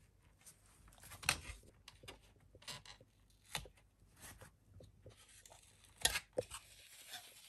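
Old felt strip being pulled off the double-sided tape under a digital piano's keys: faint, irregular tearing and scratching with a few sharper snaps, the loudest about six seconds in.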